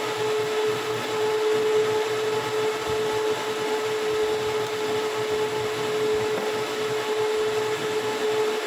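A machine running steadily: a constant mid-pitched whine over a continuous noisy hum, with no change in speed.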